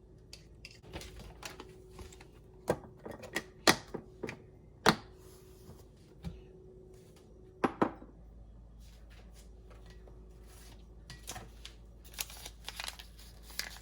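Irregular sharp clicks and knocks from small objects being handled, a handful of loud ones a second or less apart, then fainter scattered clicks near the end.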